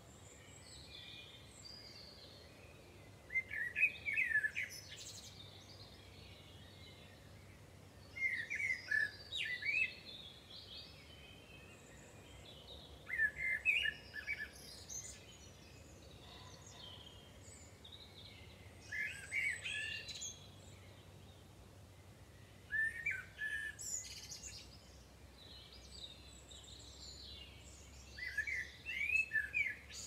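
Dawn-chorus birdsong in early spring: one songbird sings short phrases of about two seconds, roughly every five seconds, with fainter birds calling between them over a faint steady low hum.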